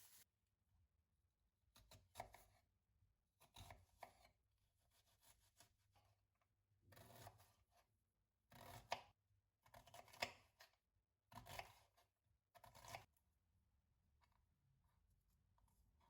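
Faint food-preparation sounds: about eight short scraping, cutting strokes at uneven intervals.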